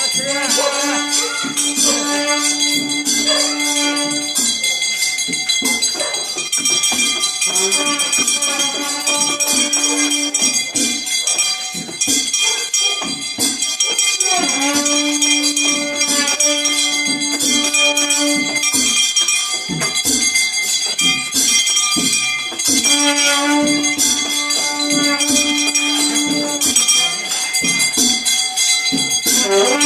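Newar festival procession music: long held notes of several seconds each, recurring in phrases, over continuous metallic jingling and ringing, with crowd voices underneath.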